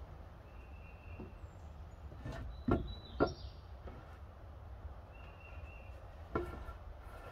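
Wooden knocks as pine lumber boards of a box frame are shifted and set down on a wooden deck: three within about a second midway through, and one more near the end. Faint short bird calls sound in the background.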